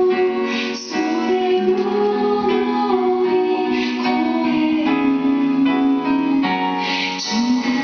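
A song with a woman singing a melody of long held notes over instrumental backing.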